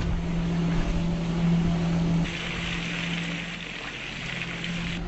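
Steady motor hum on a small fishing boat hauling in line. About two seconds in it falls back and a hiss of sea water and wind takes over.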